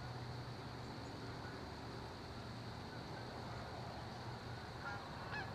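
Steady outdoor field ambience: an even high-pitched drone over a low distant rumble, with a short goose honk near the end.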